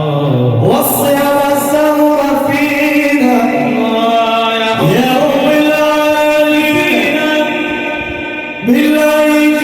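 Sufi devotional praise singing (inshad) in long, held notes. Each new phrase slides up into its note about every four seconds.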